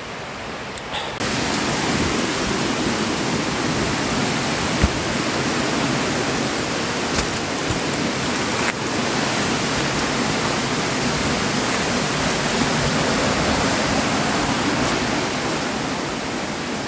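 Steady rush of running water from a valley stream and waterfalls, jumping louder about a second in, with a few faint knocks.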